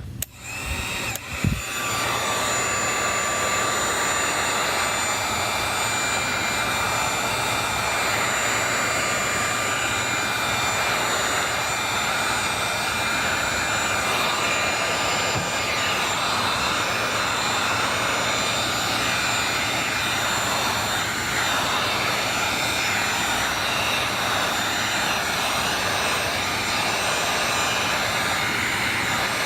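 Heat gun switched on about a second and a half in, then blowing steadily with a faint whine over the rush of air, heating the edge of an iPad Air to soften the screen adhesive before prying it open.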